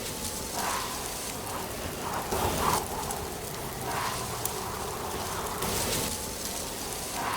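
Steady rustling, pattering wash of outdoor autumn-weather ambience, swelling softly every second or two.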